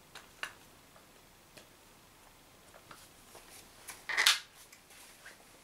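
Umarex HDS68 airgun being handled and loaded: scattered light clicks and taps, then one loud sharp clack about four seconds in.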